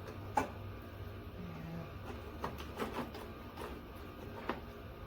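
A hand tool clicking and knocking as it works a screw loose from a dashboard panel: a handful of short, sharp clicks at uneven intervals.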